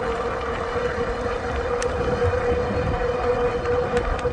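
A 750-watt e-bike motor whining at one steady pitch while riding, over a low rumble of tyres and wind.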